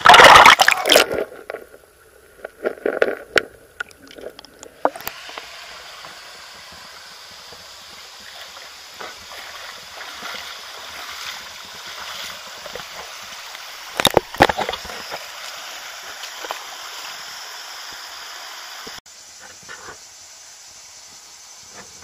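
Shallow river running over a pebble bed, a steady gurgling flow. A few loud splashes from wading through it stand out, the loudest at the very start and again about two-thirds through. The level drops suddenly a few seconds before the end.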